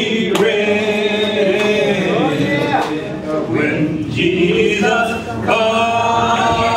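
A man and a woman singing a church song together, unaccompanied, in long held notes.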